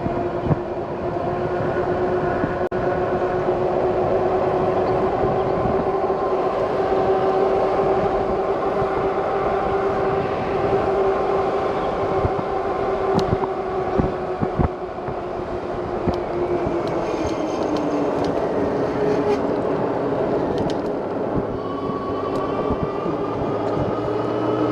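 Electric bike's hub motor whining steadily under power, its pitch dipping slightly later on, over wind rumble on the microphone.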